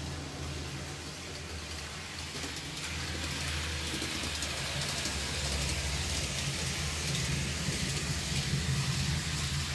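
N-gauge model train running on the layout track, a low motor hum under a steady hiss of wheels on the rails. It grows louder from about three seconds in and stops suddenly at the end.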